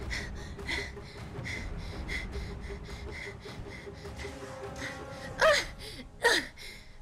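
A person's repeated gasping breaths, about one every 0.7 seconds, then two loud, sharp vocal grunts falling in pitch near the end, as in effort during a fight.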